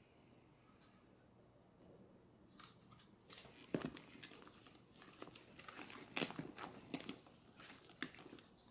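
Spatula folding and scraping thick castella batter in a glass bowl: irregular soft wet strokes with several sharp clicks of the spatula against the glass, starting a couple of seconds in.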